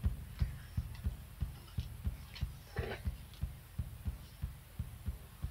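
A steady low thumping pulse, a little over two beats a second, like a heartbeat, with a faint rustle or breath about three seconds in.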